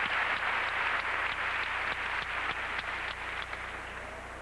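Arena audience applauding, a dense patter of hand claps that gradually fades away toward the end.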